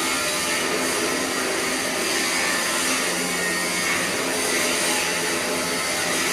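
Welding arc giving off a steady, even hiss.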